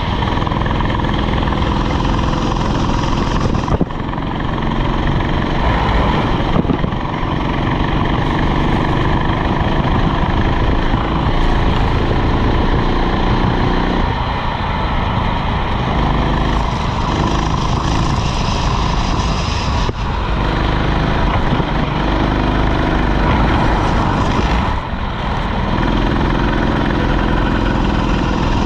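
Rental kart's small engine running hard, its pitch climbing and falling as the kart accelerates and lifts off, with short drops in level several times where it slows for corners.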